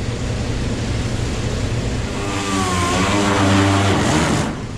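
Air-powered sander grinding paint and body filler off a steel tail pan, a steady hum with a rasping noise over it. Its pitch wavers for a couple of seconds as it is worked against the metal, and it eases off near the end.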